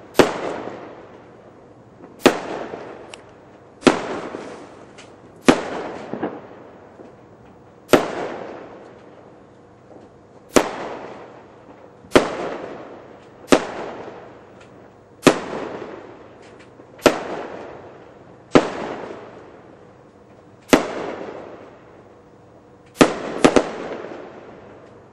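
Aerial fireworks bursting in a steady series: a sharp bang every one and a half to two and a half seconds, each trailing off in a fading tail, with a quick double bang near the end.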